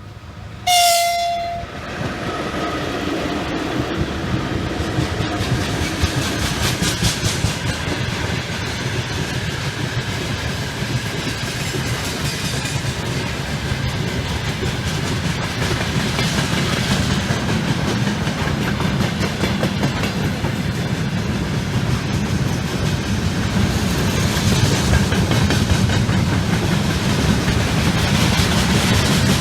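VL11m electric locomotive sounds one short horn blast about a second in, then passes hauling a freight train: a steady rumble of wheels on rail with clickety-clack over the rail joints, growing a little louder toward the end.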